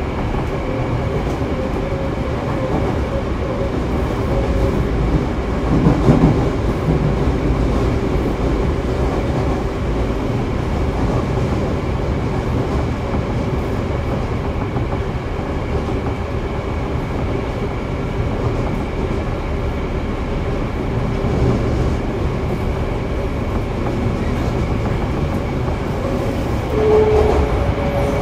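Running noise of a Toei 5300 series subway train with Mitsubishi GTO-VVVF traction equipment, heard on board: a steady rumble of wheels on rail with faint steady motor tones. There is a brief louder knock about six seconds in, and near the end a tone begins to fall in pitch.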